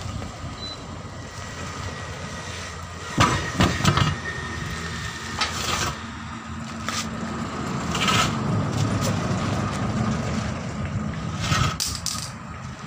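Heavy tractor tyre on its steel rim being rolled and laid flat on the ground, with a couple of loud thuds about three to four seconds in and a few lighter knocks later, over a steady mechanical hum.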